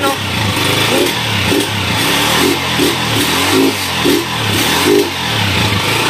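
Honda TMX 155 single-cylinder four-stroke engine running through a new Takasago stock-type muffler, revved up and down repeatedly, about twice a second.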